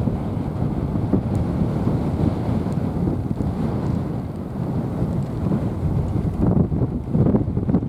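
Wind buffeting the microphone: a continuous low, gusting rumble.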